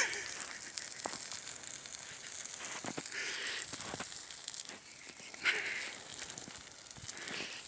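Old wooden dog kennel burning: fire crackling with irregular sharp pops over a steady hiss.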